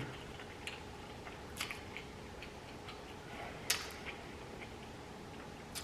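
Quiet chewing of a burger close to the microphone, with a few sharp wet mouth clicks, the loudest about three and a half seconds in.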